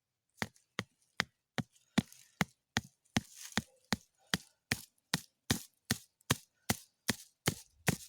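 A tent peg being hammered into stony ground: about twenty sharp, evenly paced blows, roughly two and a half a second.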